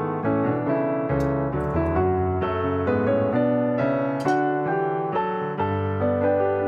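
Background piano music: a gentle melody of steadily flowing notes.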